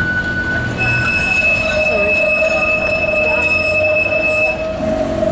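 Balloon double-deck tram's wheels squealing on curved track as it rounds the bend, a loud steady high-pitched squeal that sets in about a second in and stops near the end.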